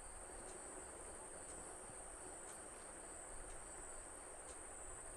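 Faint, steady high-pitched trill of crickets, with light ticks about twice a second.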